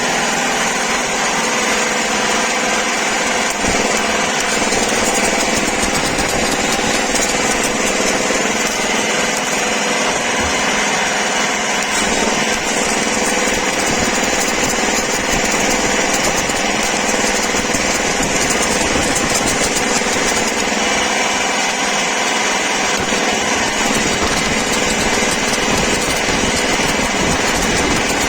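Stick-welding arc from an inverter welding machine crackling and sizzling steadily without a break as a bead is laid, over the steady running of a generator engine.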